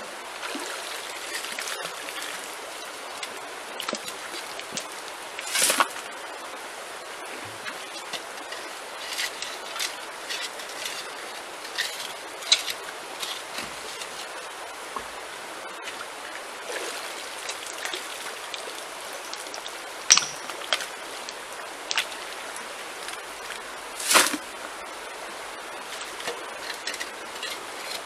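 Shallow stream running over stones, with repeated scraping and knocking of a hand tool digging into the gravel and rocks of the streambed. Several sharper clacks stand out, the loudest about six, twenty and twenty-four seconds in.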